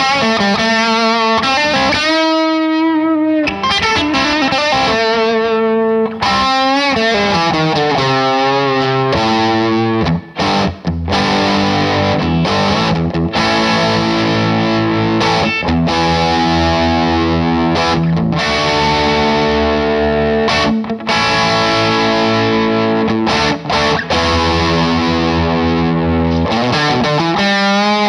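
1963 Gibson Les Paul/SG electric guitar played through distortion, with held chords and wavering bent notes near the start and again near the end.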